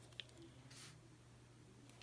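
Near silence: room tone with a steady faint hum and one faint click.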